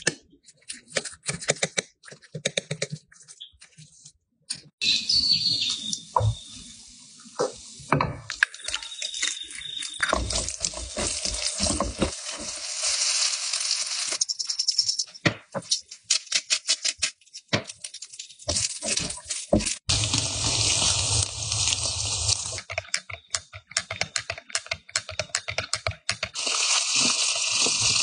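Kitchen cooking sounds: a fork clicking and scraping on a plate, then a spatula scraping a nonstick frying pan while rice is stir-fried, with a steady hiss of food sizzling in oil. Near the end, longanisa sausages sizzle steadily in the pan.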